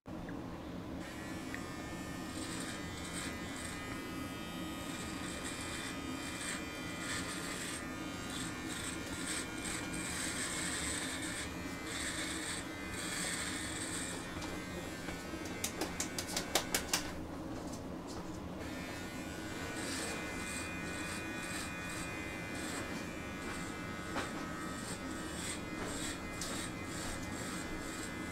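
Manscaped Lawn Mower 4.0 electric body trimmer running with a steady buzz as it trims chest hair. About halfway through there is a quick run of about seven clicks.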